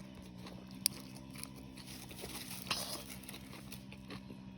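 A person eating beef noodle soup: quiet chewing with scattered small clicks, a sharper click about a second in and another near three seconds, over a steady low hum.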